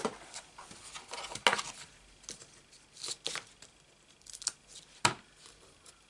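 Hands handling small papercraft supplies, taking foam adhesive dimensionals off their sheet: about seven sharp clicks and taps, unevenly spaced, with faint rustling between. The loudest taps come about one and a half and five seconds in.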